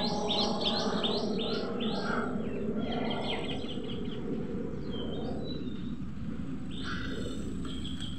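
A small bird chirping in quick repeated notes, about four a second for the first two seconds, then in scattered calls. Underneath runs the low steady hum of a small Maruti Suzuki hatchback driving slowly closer.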